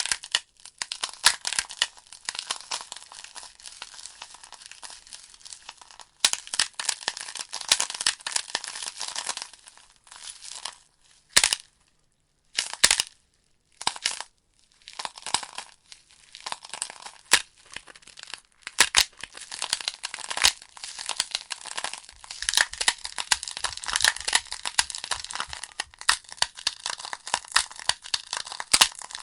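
Logs burning in a fireplace, crackling and popping in quick irregular snaps. Around twelve seconds in the crackling briefly drops almost to silence, broken by a few lone pops, before it picks up again.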